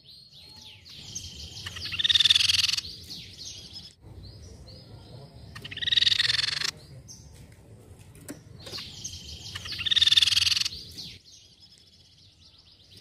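Crescent-chested babbler (tepus pipi perak) singing: three loud phrases about four seconds apart, each a run of high notes that swells into a fast rattling trill, over a faint low hum.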